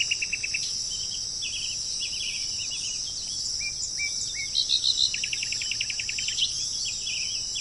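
Birds chirping and giving short rapid trills over a steady high-pitched chorus of insects, typical of crickets. A louder run of quick rattling chirps comes a little past the middle.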